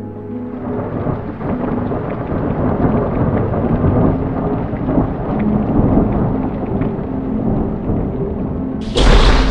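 Thunderstorm: rumbling thunder over steady rain. Near the end a sudden, much louder crash sets in.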